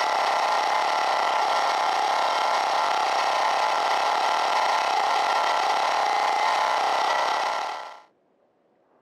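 1973 John Deere 300 snowmobile's two-stroke engine running steadily after a cold start. The sound falls away to near silence near the end.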